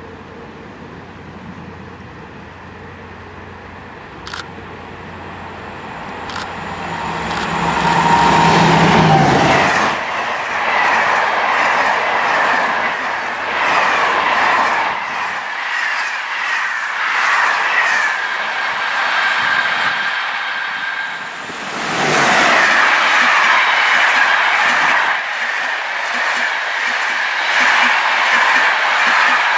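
A locomotive-hauled Corail passenger train approaches and passes close by: the locomotive's steady hum swells to a peak about eight seconds in, then the coaches roll past with wheels clattering over rail joints. About two-thirds through, another string of coaches starts rolling past loudly, with a high steady tone over the rolling and clacking.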